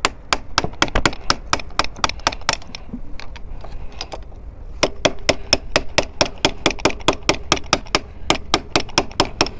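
Ratchet wrench clicking in quick, even strokes, about six clicks a second, in two runs with a pause of about two seconds between them. It is tightening the steering-head nut of a KTM Duke 250 to take up play in the loose handlebar that was knocking over bumps and under braking.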